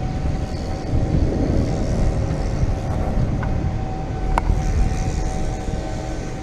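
Golf cart driving along, heard from the seat: a steady whine from its drive over a low rumble of wind on the microphone and tyres on the road, with one sharp click about four seconds in.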